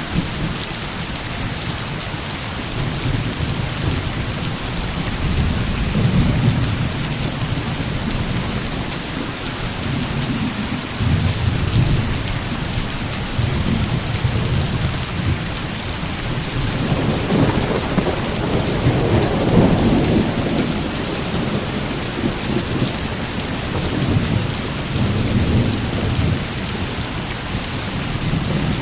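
Heavy rain falling steadily as an even hiss, under a low, uneven rumbling that swells louder a little past halfway.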